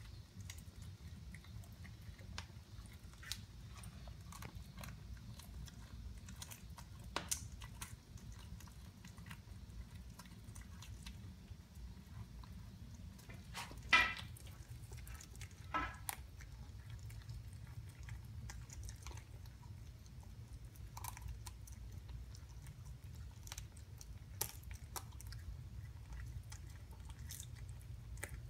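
Cat chewing and biting into a rabbit it has killed: a run of small sharp clicks of chewing, with two louder crunches about halfway through.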